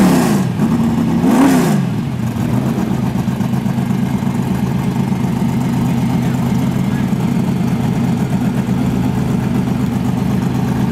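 Car engine blipped once, its pitch rising and falling about a second and a half in, then settling to a steady idle.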